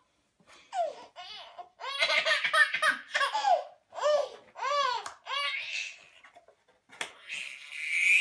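A toddler laughing in several high-pitched bursts, each a run of quick rising-and-falling squeals and giggles, with short pauses between them.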